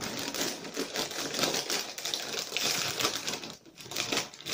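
A crinkly plastic snack bag of pitta chips being pulled open and handled: dense crackling, with a few separate crinkles near the end.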